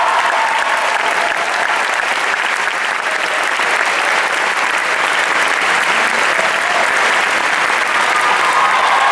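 Audience applauding steadily, a dense clapping of many hands.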